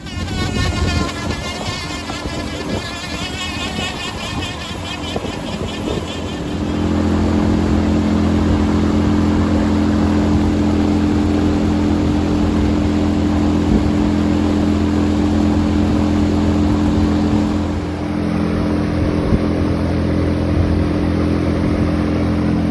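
Engine running, its pitch wavering for the first six seconds before it settles into a steady, louder run.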